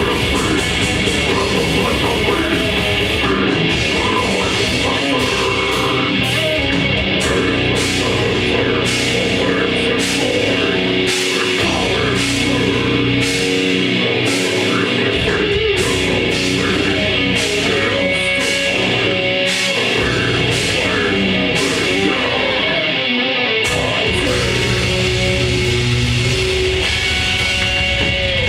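Grindcore band playing live: distorted electric guitars, bass and drums in a loud, dense wall of sound, with regular cymbal strikes through most of it.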